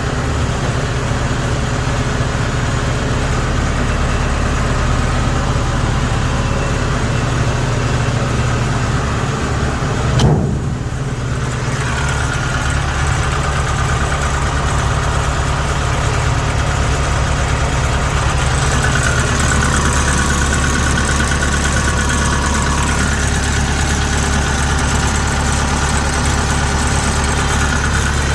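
Kubota DC70G combine harvester's diesel engine running steadily at idle, with one short loud bump about ten seconds in.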